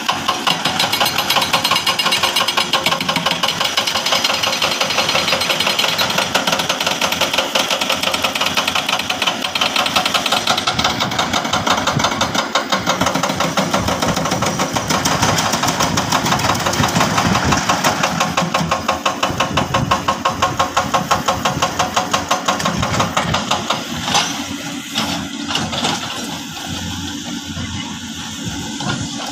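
Diesel engine of heavy earthmoving machinery working, with a fast, even pulsing beat. It eases and quietens for a few seconds near the end, then picks up again.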